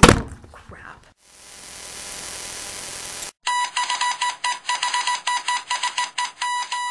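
Intro sound effect: a knock at the start, then a hiss that swells for about two seconds and stops. After that comes a rapid, uneven run of electronic beeps and clicks on one high pitch.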